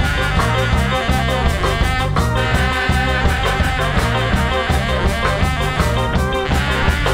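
Live band playing a reggae–tsifteteli fusion instrumental: a saxophone leads over electric guitar, keyboard and drums with a steady rhythmic low end.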